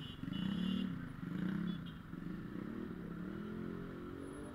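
Vehicle engines in close road traffic. The engine pitch rises and falls twice, then climbs steadily through the second half, with road noise underneath.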